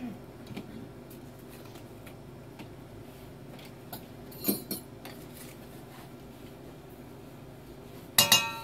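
Kitchen utensils and spice containers being handled over a stainless steel mixing bowl while dry seasonings go in. Faint clicks and a couple of light clinks come about halfway through, then a loud metallic clink with a ringing tail near the end.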